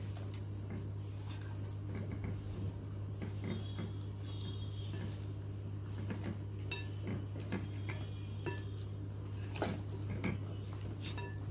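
A hand mixing spice marinade into raw pigeon pieces in a bowl: irregular wet squishes, with clicks and knocks as the pieces hit the bowl, over a steady low hum.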